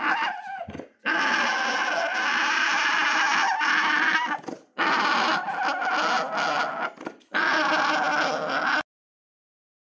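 Alpaca calling: a short call followed by three long drawn-out calls with brief breaks between them.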